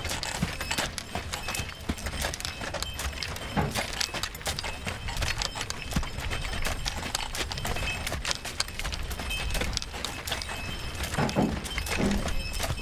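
Hooves of two draft horses clip-clopping as they walk the sweep round a horse-driven oil mill, with irregular knocks and clatter. A short pitched sound comes about eleven seconds in.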